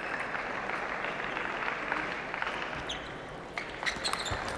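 Crowd applause fading out over about three seconds, then a few sharp clicks of a table tennis ball as play resumes.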